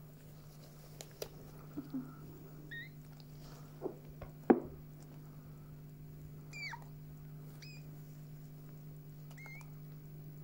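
Newborn chihuahua puppy giving four short, high squeaks that drop in pitch, spaced a second or more apart, while it is handled in gloved hands just after birth. A few soft handling knocks come earlier, the loudest about four and a half seconds in, over a steady low hum.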